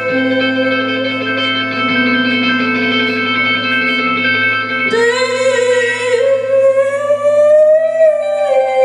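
Live band music: electric guitar playing long, held droning tones with a singing voice. About five seconds in, a new sliding tone enters, slowly bending up and then back down.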